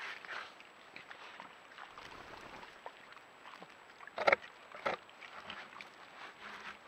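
Wild boar moving and rooting in the grass close to the trail camera: faint rustling, with two short, loud, noisy bursts about four and five seconds in.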